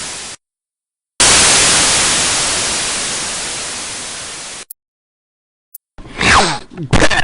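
Harsh white-noise static sound effect: one burst that cuts off a moment in, then after a short silence a second burst that starts loud and fades over about three and a half seconds before stopping abruptly. A voice comes in near the end.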